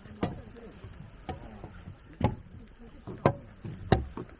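Footsteps: a series of distinct, irregular thuds, a few of them heavier, with faint voices in the background.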